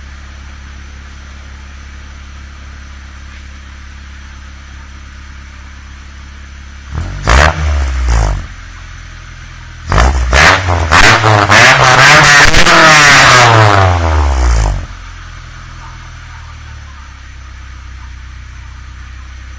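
Honda Civic four-cylinder engine idling with a ram air intake fitted, blipped briefly about seven seconds in, then revved up and back down over about five seconds before settling to idle again.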